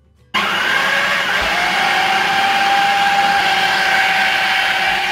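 Electric food processor starting suddenly and running at full speed, grinding raw mutton mince with onion, coriander, green chillies and spices into a fine paste. A steady motor whine rises slightly as it comes up to speed, then holds.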